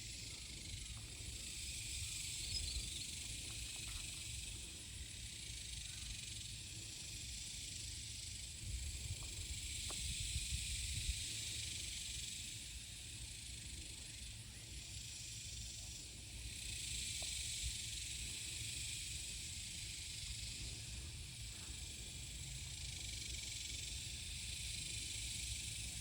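Outdoor summer ambience: a steady high-pitched insect hiss that swells and fades every several seconds, with a low rumble and a few faint knocks underneath.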